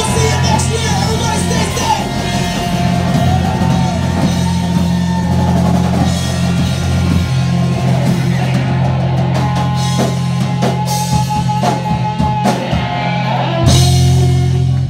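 Live rock music: an electric guitar plays sustained lead notes that bend up and down over steady bass and drums.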